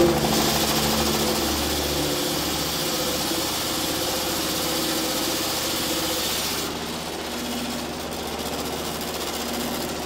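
Old motor-driven maize grinding mill running steadily: a low engine hum under the grinder's high rushing noise. The high rushing part falls away a little after six seconds in, leaving the lower running sound.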